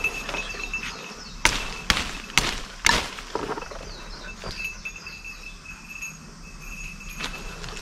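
Footsteps through dry forest leaf litter, with four sharp snaps of breaking sticks between about one and a half and three seconds in. A faint, high, steady whine comes and goes in the background.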